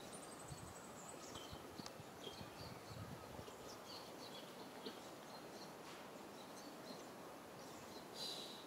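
Faint outdoor background with small birds chirping on and off: a quick falling run of high notes at the start, scattered short chirps throughout and a brighter call near the end. A few soft low rustles.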